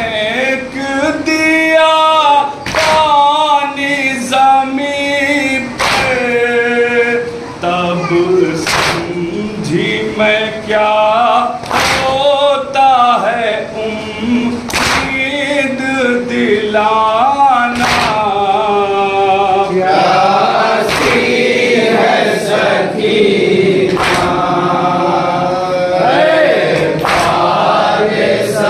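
A Shia nouha lament sung by a lead male voice without instruments, with a group of men singing along in chorus in the later part. Sharp slaps of matam, hands striking chests, land in a steady rhythm over the singing.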